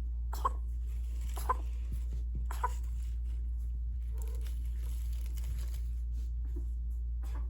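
Kitten coughing: three short, sharp coughs about a second apart in the first three seconds, then only faint small sounds, over a steady low hum.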